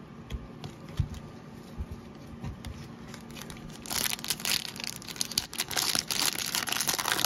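A few soft knocks, then from about four seconds in the loud crinkling and tearing of a Topps Garbage Pail Kids Chrome hobby-pack wrapper being ripped open by gloved hands.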